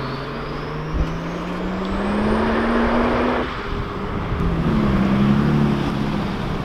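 A Volkswagen Vento's engine accelerating away, its note rising steadily through the revs and breaking off about three and a half seconds in, with a faint high whine rising alongside. A second car's engine comes in, rising and falling, near the end.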